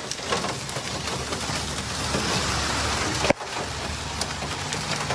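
Steady hiss and patter of rain and hail falling around a vehicle driving on a hail-covered road, with a short click and dip about three seconds in.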